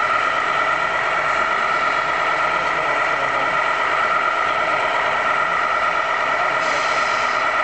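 Radio-controlled scale model trucks running: a steady, engine-like drone with a constant high hum. A short hiss joins it near the end.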